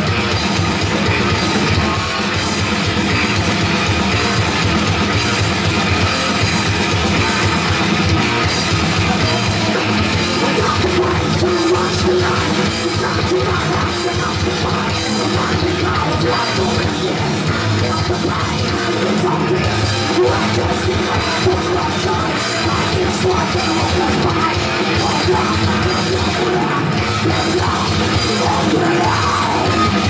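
A live heavy rock band playing loud and without a break: distorted electric guitars and a drum kit, with a vocalist shouting into the microphone, in a heavy metal or punk style.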